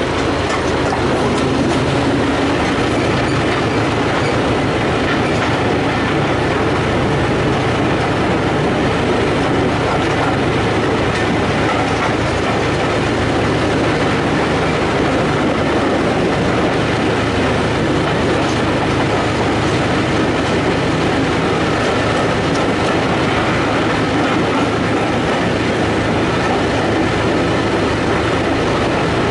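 Steady running noise of a train under way, wheels rolling on the rails, heard as a heritage railway coach in motion.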